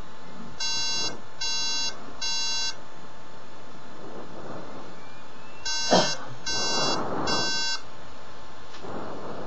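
MacBook startup beep code: three short beeps in a row, repeating about every five seconds, the pattern Apple's Macs of that era use to signal a RAM fault. A short knock sounds about six seconds in.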